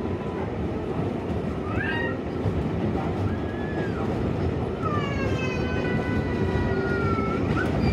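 R188 subway train pulling out of an elevated station: a steady running rumble with several squeals of shifting pitch on top, the longest starting about five seconds in and lasting some two and a half seconds.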